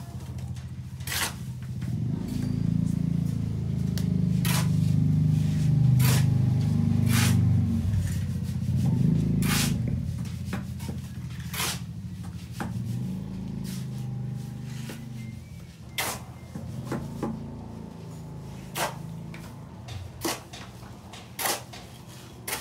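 Construction-site noise: sharp knocks at irregular intervals, roughly one every second or two, over a low steady hum that is loudest through the first half and then fades.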